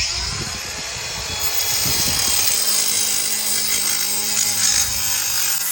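Angle grinder cutting into stucco: a loud, steady, hissing grind that starts abruptly, with the motor's steady hum showing under it from about two seconds in.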